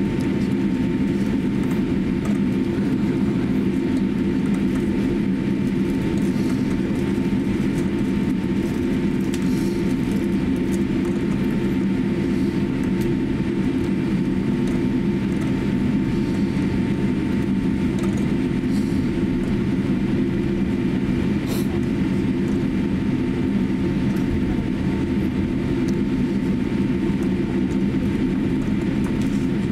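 Steady cabin noise inside a Boeing 787-8 airliner taxiing on the ground: a low, even rumble with a faint steady tone above it.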